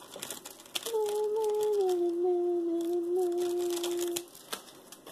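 A woman humming one long note that drops slightly in pitch partway through and lasts about three seconds, with a few light clicks near the start.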